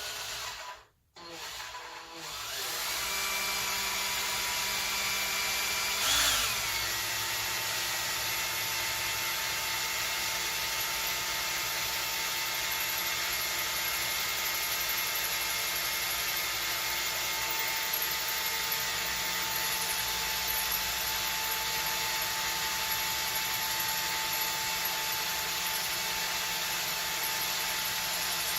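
Cordless drill boring through the brass throttle shaft and bracket of an HD8 SU carburettor clamped in a vise. After a brief blip it spins up and runs steadily with a whine, with a short louder moment about six seconds in.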